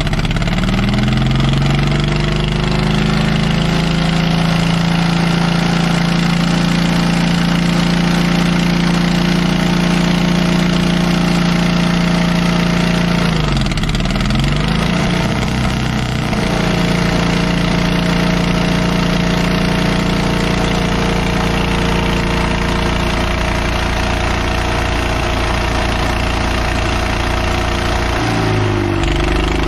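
Old Caterpillar D8 bulldozer's engine just after catching from cranking, its pitch rising as it picks up speed, then running steadily. About 13 seconds in its speed sags and recovers over a couple of seconds, and it dips briefly again near the end.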